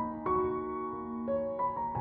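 Background music of slow, gentle piano notes, a new note struck every half second or so.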